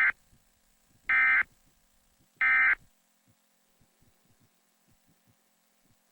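Emergency Alert System end-of-message data bursts: short, identical, buzzy digital squawks about a second and a quarter apart, the tail of one right at the start and then two more. They are the coded signal that closes the alert broadcast.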